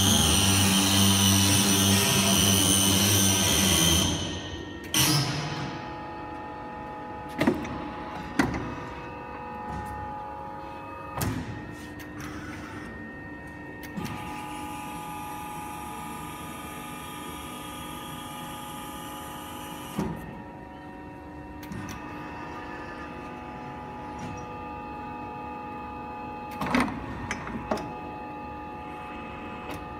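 Steelmaster CNC3 mandrel tube bender with Siemens servo drives working through its bending cycle. A loud rushing noise for the first four seconds drops away to a steady whine of several held tones from the drives, with sharp clanks as the clamps and carriage move and a hiss partway through.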